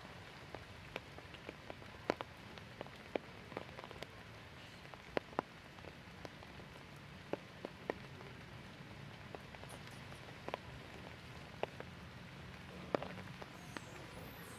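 Water drops dripping from the forest canopy after rain: irregular sharp ticks of single drops, a few a second, over a faint steady hiss.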